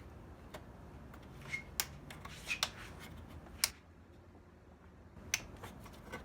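Plastic PCV valve cap being pressed onto a BMW 550i's valve cover, its clips snapping into place: a handful of sharp snaps, with light rubbing and handling of the plastic between them.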